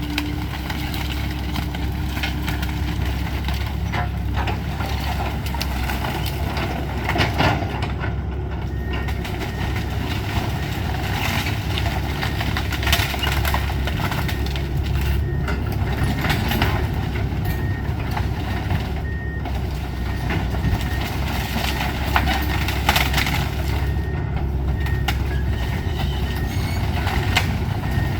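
Heavy demolition machinery's diesel engine running steadily, with occasional short knocks and crunches. From about nine seconds in, a backup alarm beeps repeatedly.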